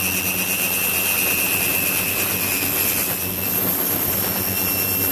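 Ultrasonic cleaning tank running with liquid circulating in from a hose: a steady hiss of water and cavitation, with a thin high tone that fades out a little after three seconds, over a low hum.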